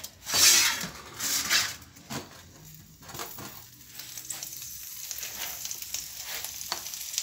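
Diced green peppers sizzling in a frying pan on an electric stove hob, with two louder bursts of hiss in the first couple of seconds, then a steady sizzle.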